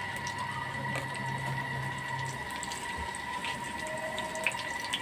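Sliced onions starting to sizzle softly in heating oil in a frying pan for a tadka, a steady hiss with small crackles. A steady high-pitched whine runs underneath, and a low hum stops about halfway through.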